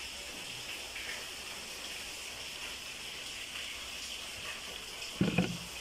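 Steady hiss of rain falling, with a brief louder thump about five seconds in.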